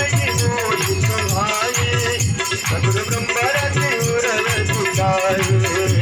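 Indian devotional folk music: a wavering melody over steady dholak drum beats, with small hand cymbals (manjira) chinking throughout.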